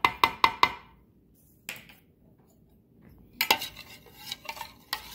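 Four quick sharp clinks, then after a pause a metal spoon stirring olive oil and lemon juice in a plastic measuring jug, clinking rapidly against its sides from about three and a half seconds in.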